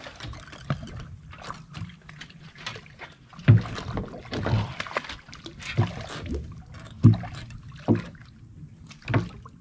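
Knocks and thumps against a small boat's hull and deck, about six of them, irregular and roughly a second apart, with smaller taps between.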